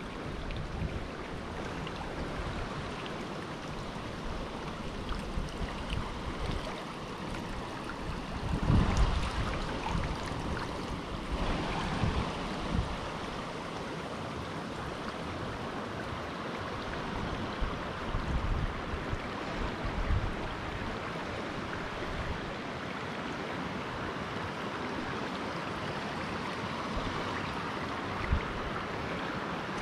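Shallow river rapids rushing and splashing steadily over stones. Occasional low bumps, loudest about nine seconds in.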